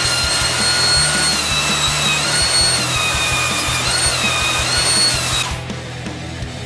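Belt sander running with the edge of a wooden disc pressed against its abrasive belt: a loud sanding hiss with a steady whine that dips in pitch twice, then cuts off about five and a half seconds in. Background music with a steady beat underneath.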